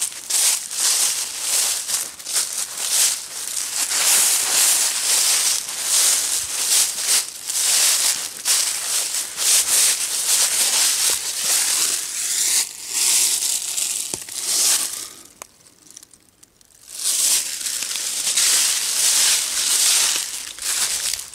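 Footsteps rustling through thick dry fallen leaves, a steady run of steps that stops for about two seconds some two-thirds of the way through, then picks up again.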